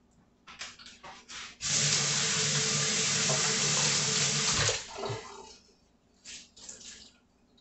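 Kitchen tap running into a sink for about three seconds, starting and stopping sharply, with a few faint knocks before and after.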